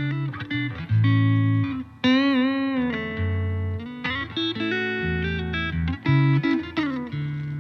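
Electric guitar played through a Fender Princeton Reverb '65 amplifier: a run of plucked low notes and double-stops, with a bent, wavering note about two seconds in.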